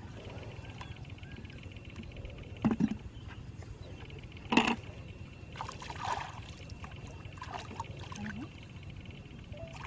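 Water splashing and sloshing, with two short, louder splashes about two and a half and four and a half seconds in.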